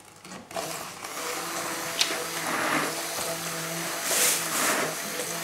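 Handheld immersion blender running in a pot of egg batter, a steady motor whine that starts about half a second in.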